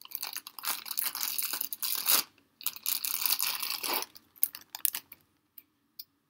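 Clear plastic bag crinkling as a microphone is pulled out of it: two spells of dense crackling, about two seconds and then about a second and a half. A few light handling clicks follow.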